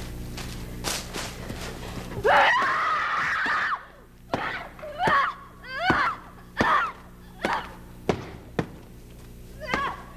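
A woman screaming in grief and rage: one long scream about two seconds in, then a string of short, ragged cries. Several of the cries come with a sharp thud. A low steady hum runs under the opening seconds and cuts off as the scream starts.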